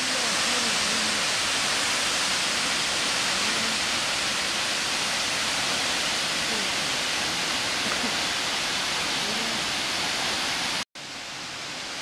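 Steady rushing and splashing of a tall, narrow mountain waterfall. The sound cuts out for a moment near the end and comes back a little quieter.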